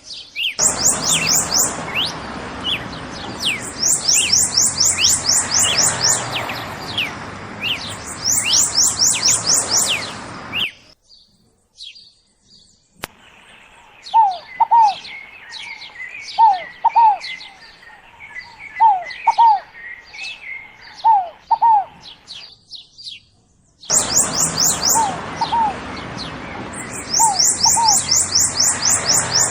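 Several wild songbirds singing in a dawn chorus. Rapid high trills and short falling whistles come over a steady background hiss, broken by two brief pauses. In the middle section a lower bird repeats paired falling notes among softer chatter.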